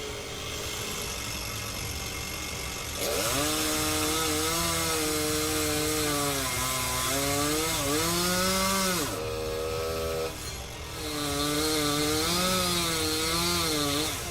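Chainsaw engine revving up about three seconds in and running under load while cutting, its pitch wavering as it bogs and recovers. It drops off briefly about nine seconds in, then revs up and cuts again.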